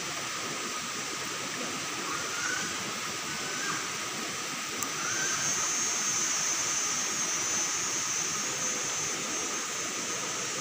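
Shallow river water rushing steadily over rocks. A thin high steady tone comes in about halfway through.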